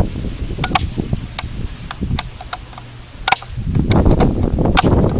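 Camera handling noise as the camera is repositioned: scattered sharp clicks and taps, then a louder rumbling rustle starting a little before four seconds in.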